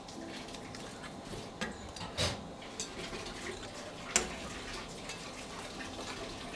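Quiet kitchen handling over a steady background hiss: a few scattered light clicks and knocks of utensils and soufflé molds as the filled molds are smoothed, the sharpest click about four seconds in.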